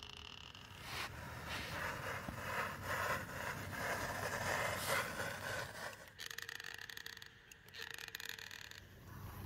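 Steel putty knife scraping excess PU sealant along a taped concrete expansion joint. The rough scraping runs for several seconds and falls away about six seconds in.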